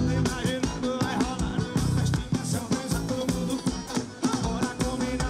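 Live forró band playing: a drum kit beat with accordion and keyboard, and singing over it.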